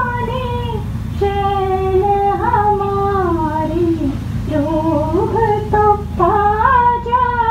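A woman singing a slow melody unaccompanied, holding and bending long notes, over a steady low rumble.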